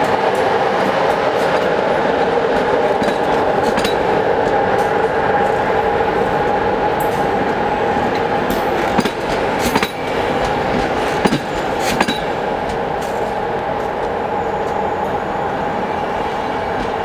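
Intercity passenger coaches rolling past at speed: a loud, steady wheel-on-rail roll with a steady tone running through it. A few sharp clicks come about halfway through as wheels cross rail joints.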